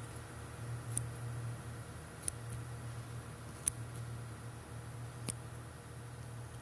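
Four sharp single clicks at uneven intervals, roughly one every second and a half, over a low steady hum.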